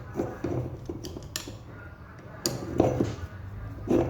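Metal clinks and knocks of hand tools and car starter-motor parts being handled while the starter is taken apart, a handful of sharp separate clicks spread across the few seconds.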